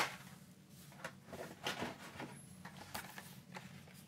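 Soft rustling and light knocks of Hot Wheels blister-carded cars being handled in a cardboard shipping case, a handful of small crinkles and scrapes with one brief high squeak of plastic about two and a half seconds in.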